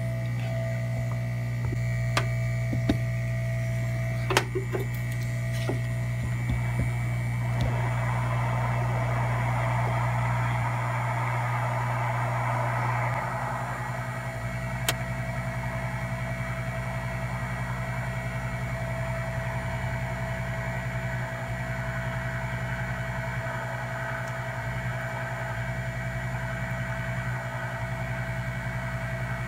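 Hot air rework station's blower running steadily as hot air is aimed at a logic board chip to desolder it, a constant whir and hum with a few light clicks in the first five seconds. About thirteen seconds in, the low hum drops and the sound settles to a steady airy whir.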